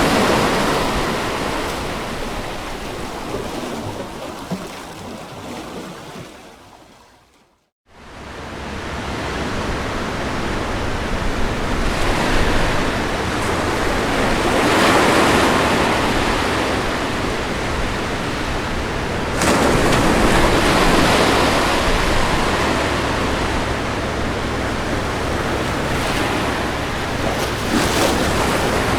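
Ocean waves breaking and washing ashore, swelling and easing every several seconds. About a quarter of the way through the sound fades out to silence and comes back in a moment later.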